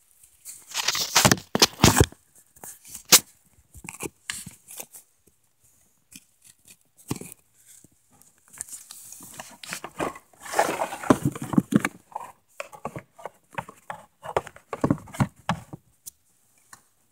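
Irregular handling noise: knocks, scrapes and rustles as the camera is picked up and moved about in a canoe, bumping against the hull and gear.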